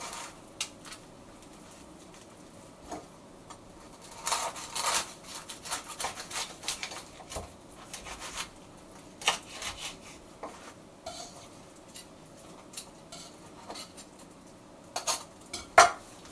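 Knife cutting through a crusty toasted ciabatta panini on a wooden cutting board: short crunching, scraping strokes as the crust gives, with scattered clicks and clacks of the knife and utensils on the board, the loudest clacks near the end.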